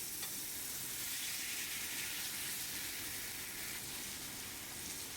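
Wagyu beef searing in a scorching-hot pan: a steady sizzle.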